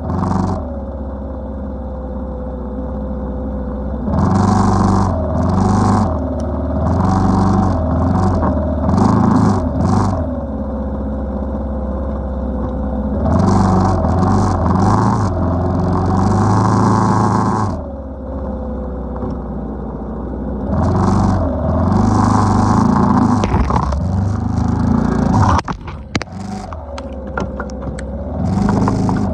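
ATV engine running under way, the throttle opened in several surges and eased off between them. Near the end, a short burst of clattering knocks.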